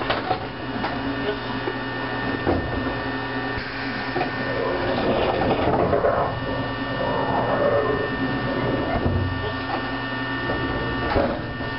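Eizan Electric Railway railcar standing still with its electrical equipment running: a steady hum with several steady tones. Muffled voices about halfway through and a sharp click near the end.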